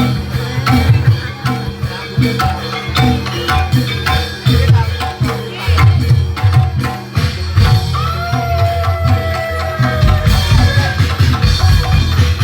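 Barongan accompaniment music with hand drums and percussion beating busily over steady held tones. A melodic line slides downward about eight seconds in.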